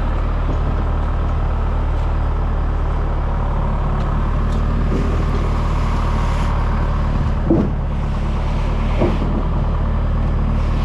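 Heavy diesel engine running steadily at a constant pitch, the drone of a concrete truck on site.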